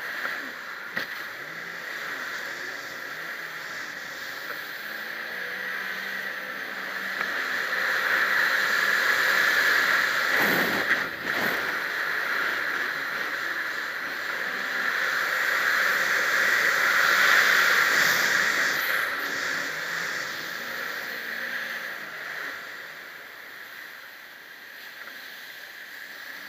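Jet ski engine running under way, heard from a camera mounted on the craft, with the rush of water and air; it grows louder twice, about a third of the way in and again past the middle.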